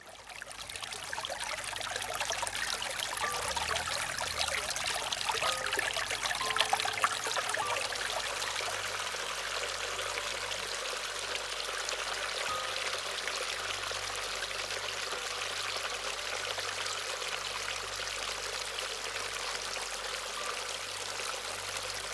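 Small shallow stream trickling and splashing over mossy rocks in a steady rush, fading in at the start.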